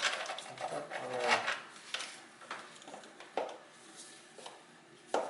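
Metal hand tools, a socket and wrench, clinking and scraping against engine parts in a few sharp knocks, with a brief murmur of voice about a second in.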